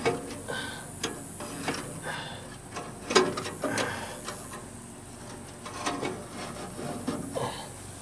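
Scattered light clicks and knocks of metal parts being handled under a hay baler, with the sharpest tap a little past three seconds in.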